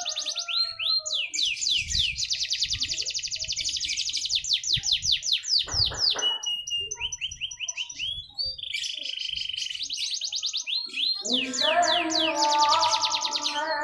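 Canary singing a long song of fast trills: runs of rapidly repeated high notes that change pitch from run to run, broken by short pauses. Over the last couple of seconds a lower call with several pitches at once sounds under the trills.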